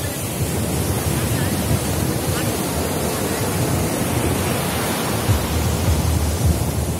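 Sea surf: small waves breaking and washing over a sandy shore in a steady rush, with wind rumbling on the microphone.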